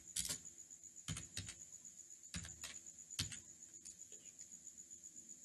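Computer keyboard keys being typed: about six separate clicks in the first three and a half seconds, then a pause.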